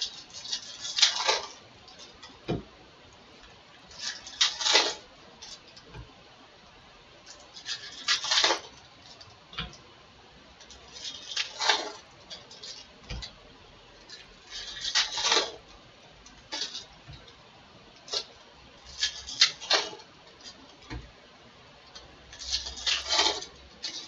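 Foil wrappers of baseball card packs being torn open and crinkled by hand, a short crinkly burst about every three to four seconds, with light taps in between.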